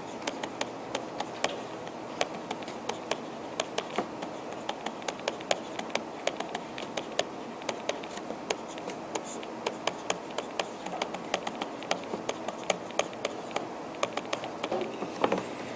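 A stylus tapping and scratching on a tablet's writing surface as handwriting is drawn: an irregular run of sharp clicks, several a second, over steady room noise.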